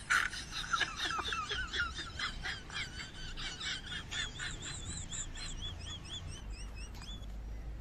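A quick string of high, bird-like chirps, each one rising and falling in pitch, thinning out in the last couple of seconds.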